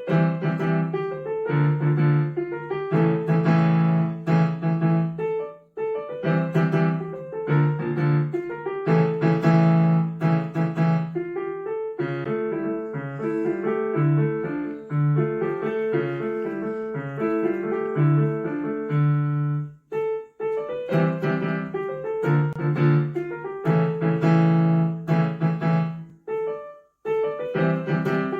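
Solo piano played by a young student: low notes repeated under chords in a steady rhythm, a quieter middle passage of quick running notes, and brief breaks between phrases.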